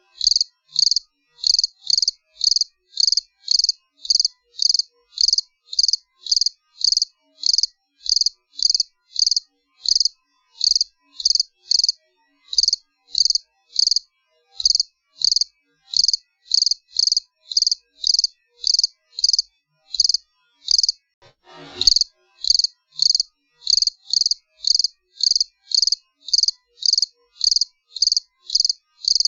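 Cricket chirping steadily, about two evenly spaced high chirps a second. A brief rising swish sounds about 22 seconds in.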